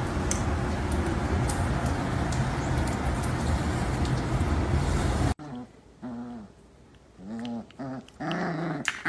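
A steady, loud rushing noise that cuts off abruptly about five seconds in, then a string of short growling whines, each rising and falling in pitch, as a spotted young animal play-fights with a dog.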